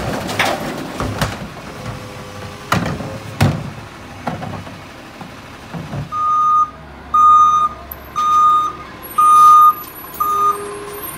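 A recycling cart banging against the hopper of a Heil rear-loader garbage truck as the cart tipper dumps it, several sharp knocks. Then the truck's backup alarm beeps five times, about once a second.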